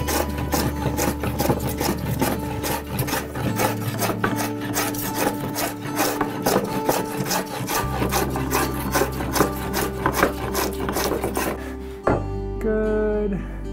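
Scrub plane cutting across a wooden bench slab in fast, repeated heavy strokes, each tearing off a thick shaving, to take down high spots. The strokes stop about 12 seconds in.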